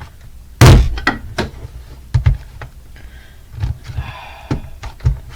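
Hard knocks and thuds on a plastic alarm clock being struck and handled. The loudest is one heavy hit about half a second in, followed by lighter knocks about once a second.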